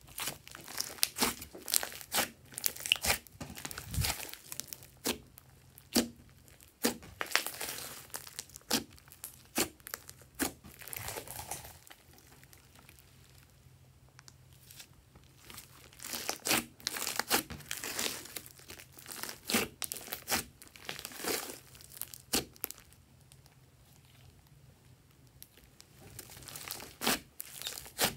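Glossy slime being stretched, folded and squeezed by hand, making sticky crackling and popping sounds in clusters, with a few quieter stretches between them.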